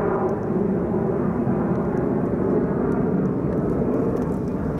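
Airliner climbing out after takeoff and passing overhead: a steady, low engine noise.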